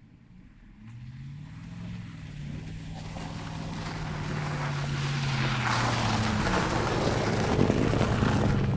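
A vehicle engine running and growing steadily louder, with a rushing noise that builds along with it. Its pitch rises about a second in, sinks slowly, then steps up again near the end.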